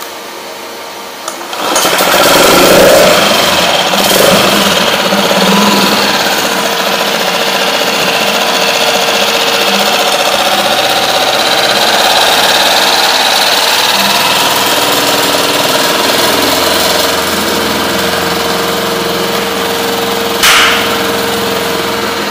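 Hidea HDF6HS four-stroke 6 hp outboard motor starting up about a second and a half in, then running steadily. A single sharp click comes near the end.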